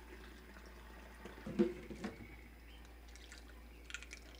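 Colostrum mixed with warm water being poured from a small cup into a plastic calf-feeding bottle, trickling and dripping quietly, with a brief louder sound about a second and a half in.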